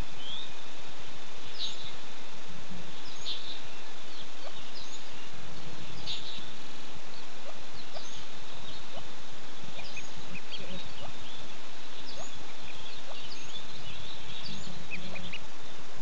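Ducklings peeping: many short, high cheeps in quick irregular succession, over a steady hiss.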